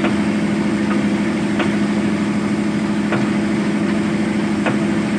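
Zoomlion ZE215E excavator's diesel engine running steadily with an even hum, with a faint click about every second and a half.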